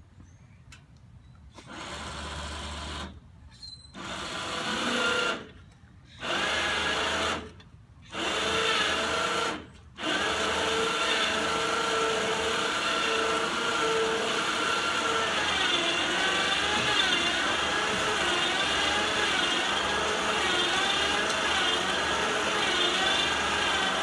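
Electric motor of a home-built motorcycle truck loader running in four short bursts, then continuously. Its whine wavers in pitch as it works under load.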